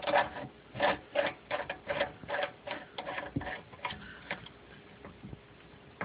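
A quick-connect coupler being screwed by hand onto a pressure washer pump's threaded outlet: irregular light clicks and taps of the fitting, about two a second, dying away after about four seconds.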